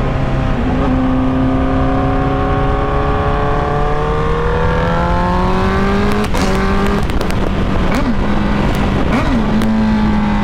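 Honda CBR sportbike's inline-four engine running under steady throttle while riding, its pitch slowly rising, with wind rush on the microphone. A few short sharp crackles come in the second half.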